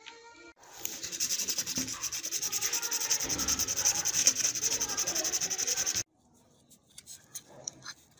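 A small hand file rasping back and forth over a tiny metal part of a die-cast toy model, in quick even strokes several a second. It stops abruptly about six seconds in, leaving only faint light scratches.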